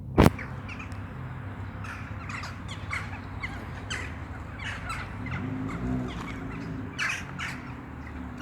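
A flock of birds calling over and over in short, high notes while feeding on rowan berries. There is a single sharp click about a quarter second in, and a steady low hum runs underneath.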